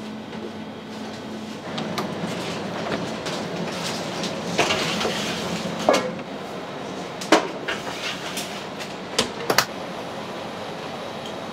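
Kitchen work sounds: pans and utensils clattering, with several sharp knocks against metal or glass over a steady background noise. Two of the knocks come close together near the end.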